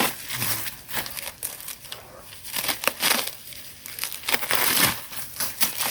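Irregular rustling and crackling: a scatter of sharp crinkles and crackles, like dry material being handled or crushed.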